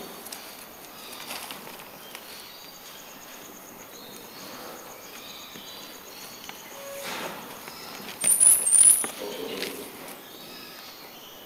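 Armadillos scratching and shuffling as they dig in soil and wood chips, a faint steady scraping. About eight seconds in comes a short, louder burst of high squeaks.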